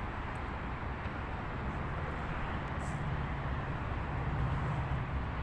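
Steady low rumble of vehicle engines and street traffic, with a couple of faint ticks.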